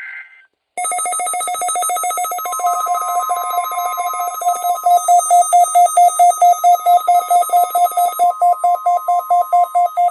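A weather radio receiver's alert alarm sounding: a rapid, steady beeping at about four or five beeps a second, set off by the NOAA weather radio warning alarm tone. The warning alarm tone joins as a steady single tone underneath from about two and a half seconds in.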